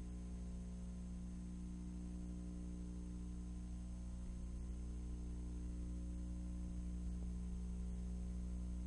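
Steady low hum made of several held tones, with a faint hiss above it.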